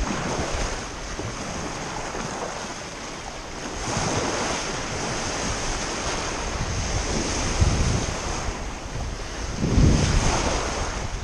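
Small sea waves breaking and washing at the edge of a rocky shore, with wind gusting on the microphone. The surf grows louder about four seconds in, and strong gusts hit the microphone near the end.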